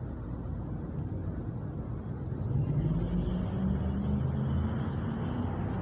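Low rumble of road traffic, with a motor vehicle's engine hum growing louder about two and a half seconds in as it comes close and keeps running.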